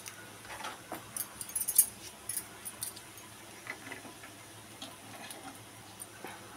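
Steel spoon clicking and scraping against the cups of a nonstick appe pan as the cooked appe are lifted out: a quick cluster of sharp clicks in the first two seconds, then a few lighter ones.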